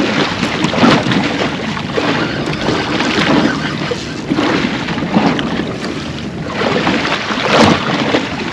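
Wind gusting over the microphone on a small fishing boat, with choppy water slapping the hull in irregular surges.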